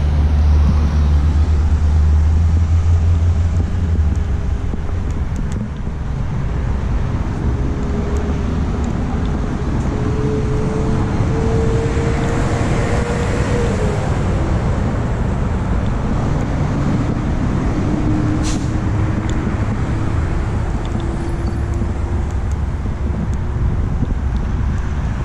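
Road traffic going by: a steady low noise of vehicles, heaviest in the first few seconds, with a faint engine whine that rises slowly twice as vehicles pull away.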